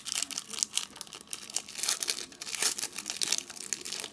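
Foil wrapper of a football trading card pack crinkling and tearing as it is torn open by hand and the cards are slid out, a dense run of small crackles.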